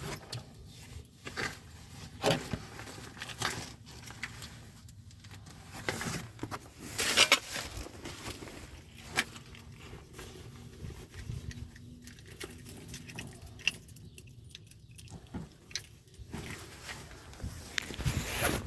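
Irregular light clicks and metallic taps of hand tools and parts being handled while the new EVAP canister vent valve is fitted and its mounting screw is lined up. Louder knocks come about two and seven seconds in.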